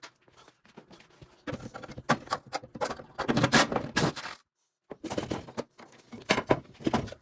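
Irregular clicks, knocks and scraping of metal parts and hand tools as an Eccotemp EL22ING gas tankless water heater is taken apart. The sound cuts out completely for a moment about halfway through.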